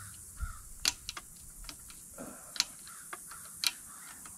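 Sharp metallic clicks, about eight at irregular intervals, as a tool works at the snap ring in the gland end of a Deere 148 loader's hydraulic lift cylinder to pop it out of its groove.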